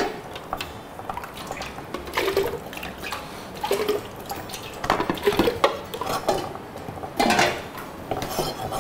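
Diced daikon radish chunks scraped off a wooden cutting board with a knife and dropped into a plastic blender jar, with irregular knocks and clatter, the louder ones about two, five and seven seconds in.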